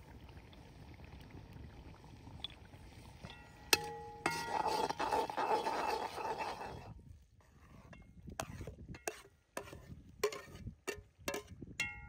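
A metal ladle striking and scraping a cast-iron pot during stirring. A ringing clank comes about four seconds in, then about three seconds of loud scraping and stirring, then a run of short, sharp clanks, some ringing, as the ladle knocks against the pot.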